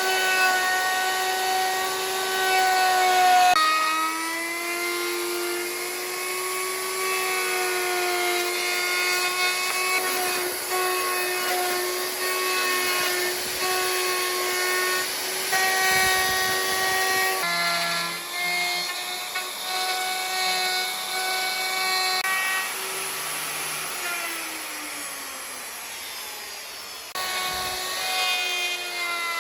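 An electric power tool's motor whining steadily as it works wood. The pitch shifts slightly with the load and jumps at several abrupt cuts between clips.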